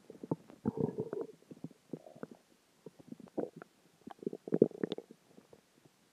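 Human stomach growling and gurgling as dinner, water and gas shift inside it. It comes as irregular pops and bubbling runs, louder about a second in and again near five seconds.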